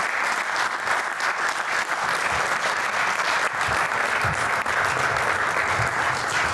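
Audience in a lecture hall applauding steadily, a dense sustained clapping of many hands.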